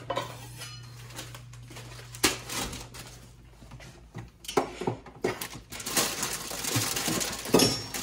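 Kitchen handling sounds: a few sharp knocks, then busier clatter and rustling through the last few seconds. A low hum stops a few seconds in.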